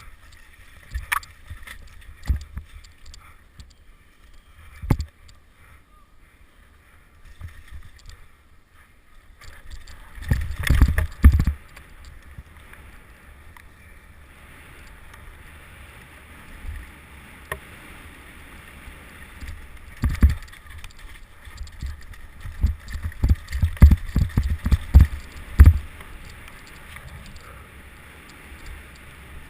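Mountain bike riding over rough ground: wind buffeting the microphone and low knocks and rattles from bumps. They come in clusters about ten seconds in and again from about twenty to twenty-six seconds.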